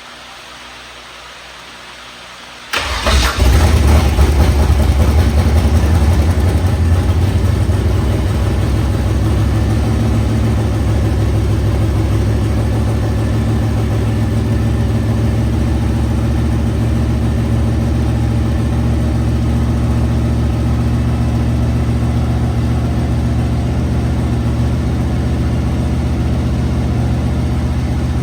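A Holden Commodore project car's freshly installed engine starting about three seconds in, catching at once, running loudest for the first few seconds, then settling into a steady idle. This is its first start after the oil system was pre-primed, with the rocker covers off.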